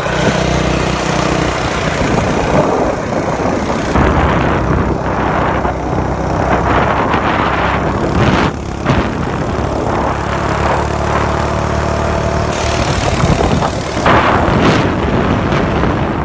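Mini bike's small engine running under way, its note shifting a couple of times, with wind buffeting the microphone in gusts.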